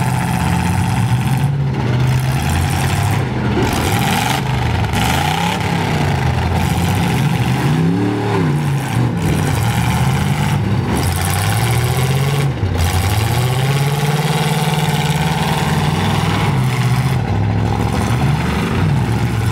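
Engines of several full-size demolition-derby pickup trucks revving up and down, their pitch rising and falling in repeated sweeps as the trucks drive and ram one another.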